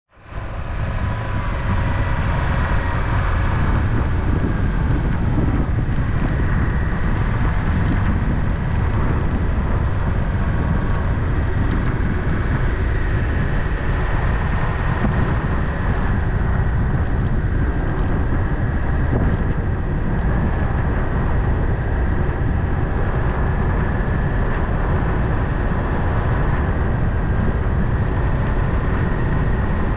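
Car driving steadily along a paved road: continuous tyre and engine noise, heaviest in the low end, fading in at the start.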